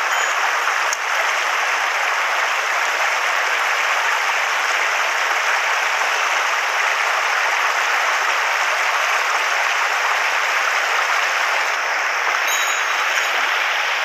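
Steady rush of a shallow mountain stream running over stones, an even hiss that holds at one level throughout.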